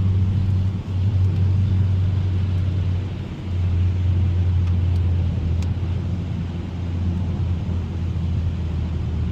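Steady low drone of a 2021 Mazda 3 Turbo AWD cruising on a wet, slushy highway, heard inside the cabin: tyre and road noise over the engine hum, with two brief dips, about one second in and around three seconds in.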